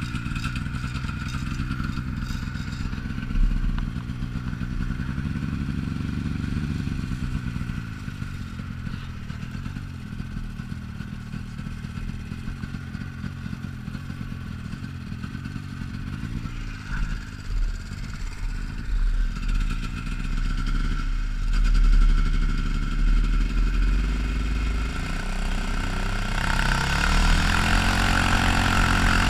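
Off-road vehicle engine idling, revved up and down several times about two-thirds of the way through, then running louder near the end.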